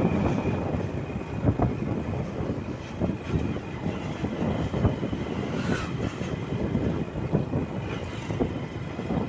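Road noise from a moving vehicle, with wind buffeting the microphone as an uneven low rumble.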